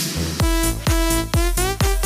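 Electronic dance music with a steady four-on-the-floor kick drum, about two beats a second, and gliding synth tones.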